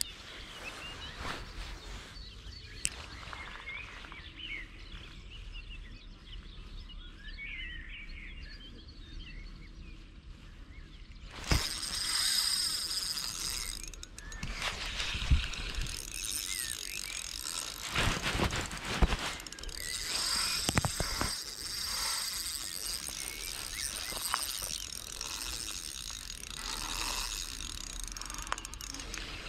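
Spinning fishing reel being handled and cranked, with mechanical clicking and rattling from its gears. It gets louder from about twelve seconds in, with knocks as hands brush close to the microphone.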